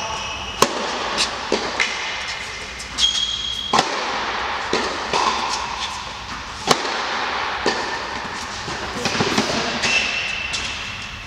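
Tennis balls struck by rackets in a rally, with sharp hits and bounces every half second to a second, and brief squeaks of tennis shoes on the court between the shots. The hits echo in a large indoor tennis hall.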